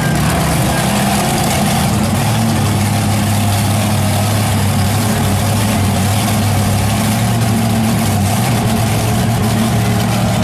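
Monster truck engines idling loudly and steadily with a deep, even low note.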